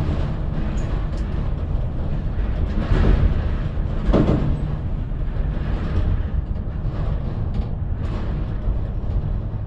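Steady low rumble of a vehicle on the road, with two brief swells of noise about three and four seconds in.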